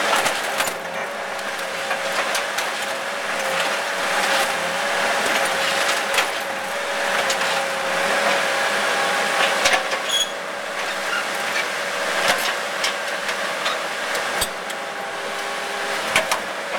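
Excavator running steadily with a constant whine, while it wrecks an old Mercedes 300D: many sharp clanks and cracks of metal and glass come at uneven intervals throughout.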